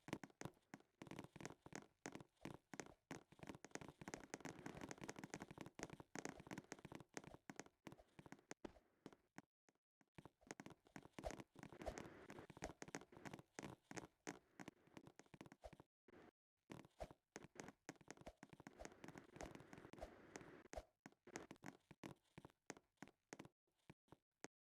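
Near silence with many faint, irregular clicks and taps.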